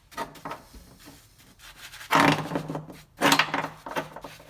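Rubbing and handling sounds from applying rust dissolver gel to a car's floor pan, with two louder, rough strokes about two and three seconds in.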